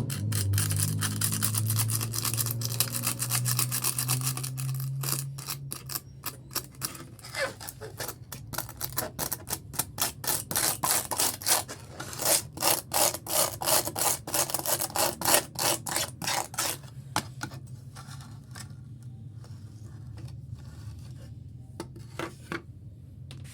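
Sandpaper rubbed back and forth over a fibreglass repair, in quick rasping strokes about two a second, with a steady low hum under the first few seconds. The strokes thin out and grow quieter near the end.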